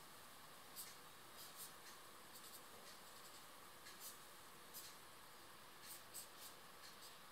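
Felt-tip marker scratching on paper in a series of short drawing strokes, about a dozen brief faint scrapes over a steady low hiss.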